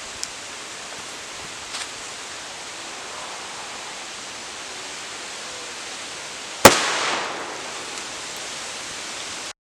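A homemade egg airsoft grenade going off: one sharp bang about two-thirds of the way in, with a short ringing tail. It stands over a steady hiss of outdoor background noise.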